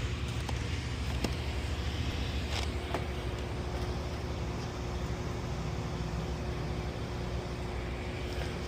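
Steady low mechanical rumble with a constant hum, broken by a few faint clicks about a second to three seconds in.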